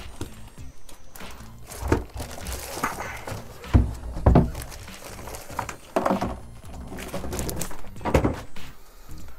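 Clear plastic packaging crinkling and rustling as a plastic backpack water-gun toy is unwrapped and handled, with several dull thunks of hard plastic parts knocking against the table.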